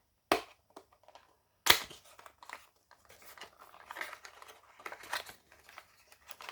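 A diecast toy car's plastic blister packaging being opened by hand: two sharp snaps, the second the loudest, then a run of crinkling and crackling plastic.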